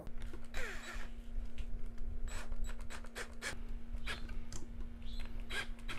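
Cordless drill-driver running at a steady pitch while driving a screw that fastens a copper cable lug to a terminal, with scattered clicks and scrapes of metal parts being handled.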